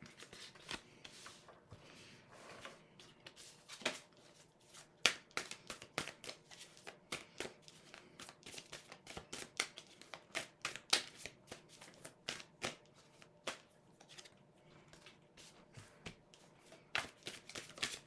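Anna K Tarot deck (indie edition) being hand-shuffled: an irregular patter of short card clicks and flicks, several a second, with a few sharper snaps among them.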